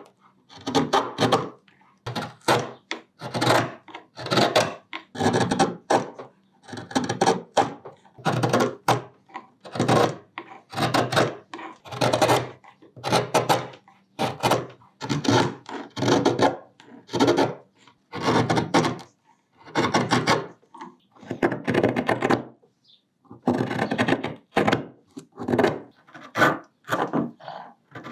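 A hand carving blade cutting into hard wenge wood, one short scraping cut about every second, each stroke separated by a brief silence.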